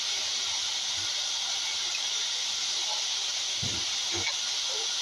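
Steady hiss of an airliner's cabin air, picked up by a phone's microphone, with two faint low bumps about three and a half and four seconds in.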